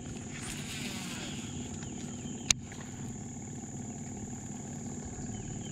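Steady high insect drone over a low steady hum, with one sharp click about two and a half seconds in.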